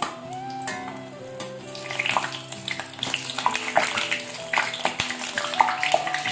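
Batter-coated stuffed chillies (milagai bajji) deep-frying in hot oil, a steady sizzle with crackling that grows louder from about two seconds in. Background music with long held notes plays throughout.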